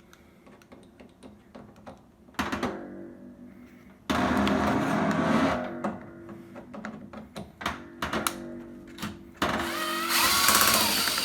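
Cordless drill/driver with a Torx T15 bit backing out screws: the motor runs briefly about four seconds in, and again near the end with its pitch rising and falling. Light clicks and knocks of the bit and screws come in between.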